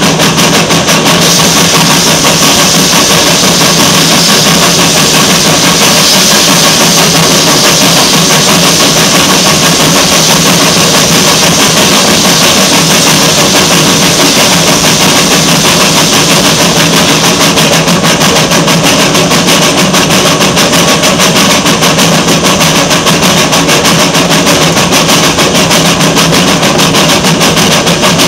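Narrow-gauge NA class 2-6-2 tank steam locomotive 6A working steadily under way, a rapid, even exhaust beat mixed with the clatter of wheels on rail, heard up close from the coach coupled right behind it.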